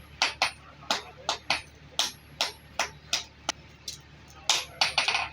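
Hand hammer striking steel on an anvil while forging a chisel: sharp blows about three a second, some in quick pairs, each with a short metallic ring, and a faster run of blows near the end.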